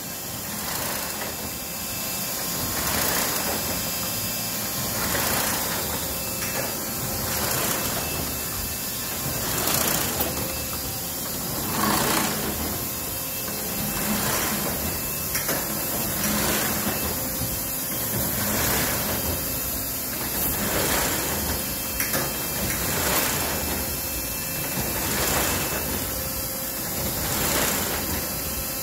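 1965 Bobst 1260E automatic flatbed die cutter running and cutting printed sheets. Its machine noise swells in a steady repeating cycle about once every two seconds.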